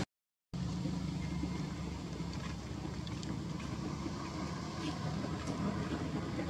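A steady low rumble of a running engine, with a few faint high clicks over it. It starts abruptly after half a second of silence.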